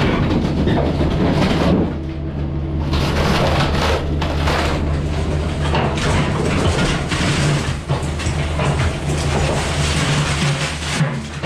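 Cat 305 mini excavator's diesel engine running steadily as it smashes through a house wall from outside, with repeated crunching and crashing of breaking wall and falling debris.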